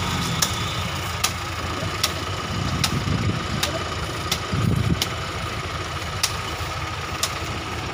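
Diesel engines of a JCB backhoe loader and a New Holland tractor running steadily, swelling louder between about three and five seconds in as the backhoe's bucket pushes against a trailer loaded with sugarcane. Sharp ticks repeat a little more than once a second.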